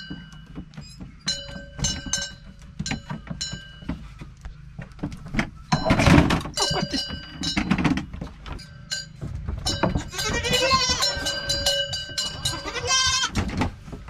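Goats bleating in a pen, with wavering bleats about ten seconds in and again near the end. A metal bell on a goat's neck clanks now and then, and there are scattered knocks.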